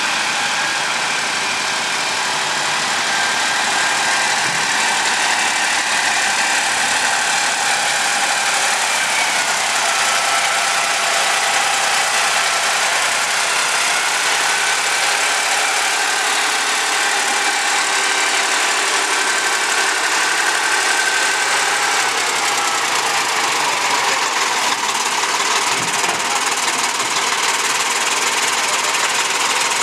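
Vintage engines running steadily, from an old crawler tractor and an Ahlmann wheel loader manoeuvring close by. The pitch shifts a little about nine seconds in and again around twenty-two seconds, as the engine speed changes.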